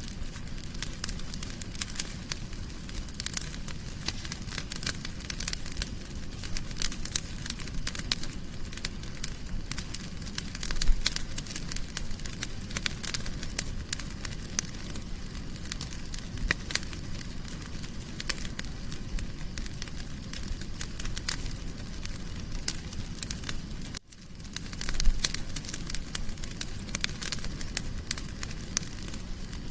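Wood fire crackling and popping in a fireplace: dense, irregular snaps over a low, steady rumble of flames, with a few louder pops. The sound cuts out for a moment about 24 seconds in.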